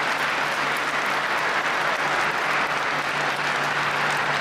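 Crowd applauding: steady clapping of many hands, with a faint low hum underneath.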